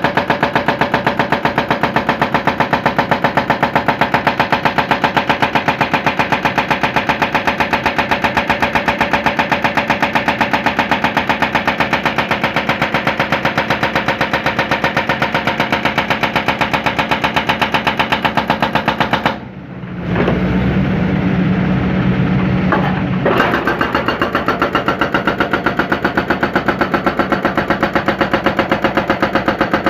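Hydraulic breaker hammer on a John Deere 160C excavator pounding the concrete of a silo base, rapid even blows over the running diesel engine. About 20 seconds in the hammering stops for roughly four seconds, leaving only the engine running, then starts again.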